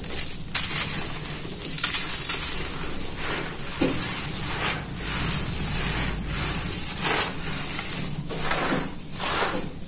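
Dry, gritty red dirt crumbled and squeezed by hand and let fall, making a quick series of crunches and sandy trickles.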